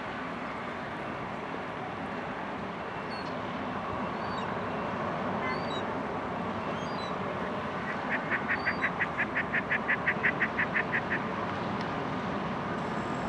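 Seagulls calling with faint short chirps over a steady rumble of harbour and ship noise, then a rapid run of about twenty short, even notes, about seven a second, lasting some three seconds near the end.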